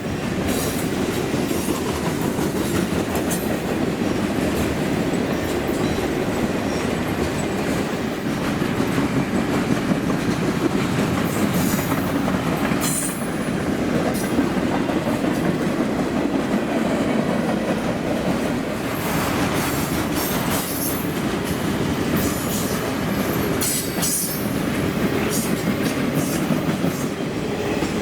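Freight train cars rolling past with a steady rumble and clatter of wheels on rail. A few brief high-pitched wheel squeals come through, about halfway in and again near the end.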